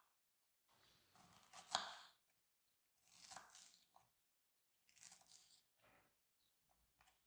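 Kitchen knife slicing through fresh strawberries onto a wooden cutting board: three crisp cuts, the first the loudest, then a few light taps near the end.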